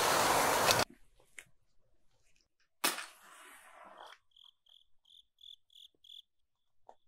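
Vegetables sizzling in a hot wok as they are tossed, cutting off abruptly under a second in. Then a single sharp click followed by a fading hiss, and a cricket chirping in a quick run of about four chirps a second.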